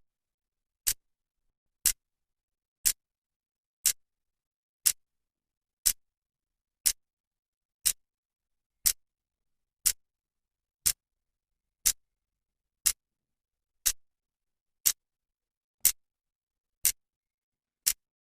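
Clock's second hand ticking, one sharp tick each second at a steady pace.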